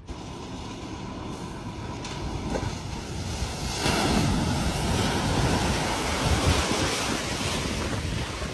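A vehicle ploughing through deep floodwater: a loud rush of surging, splashing water over a low rumble. It swells from about four seconds in, then eases near the end.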